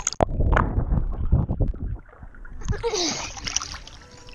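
Pool water splashing and sloshing against a waterproof camera held at the surface, with a louder burst of splashing about three seconds in.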